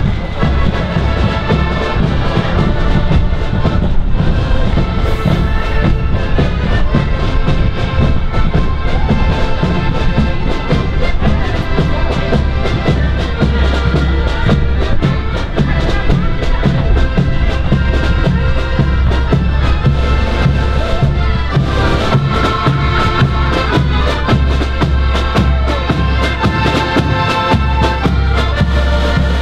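Marching accordion band playing a tune: many accordions holding the melody and chords together over a steady drum beat.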